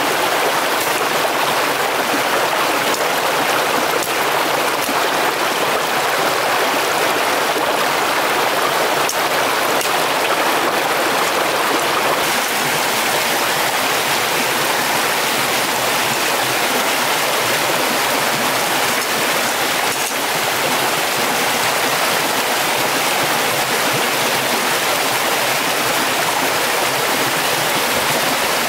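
Stream water flowing with a steady, unbroken rush.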